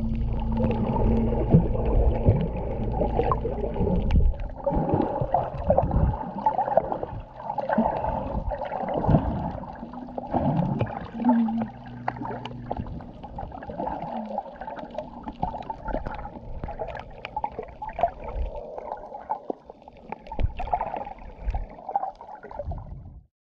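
Underwater sound picked up by a submerged action camera: muffled water sloshing with many irregular clicks and crackles. A steady low hum runs underneath for the first four seconds and then fades out.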